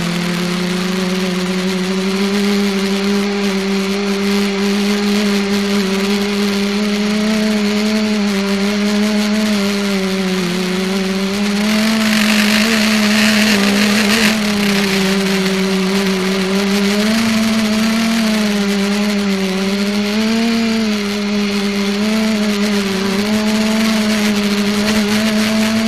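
ETFD2 flying-disc multicopter's motors and propellers buzzing steadily in flight, the pitch wavering up and down as the throttle changes. About halfway through, a louder hiss swells over the buzz for a couple of seconds.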